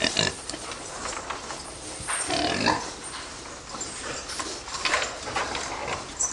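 Young fattening pigs in a pen grunting and snuffling in irregular short bursts, with one louder, longer call about two and a half seconds in.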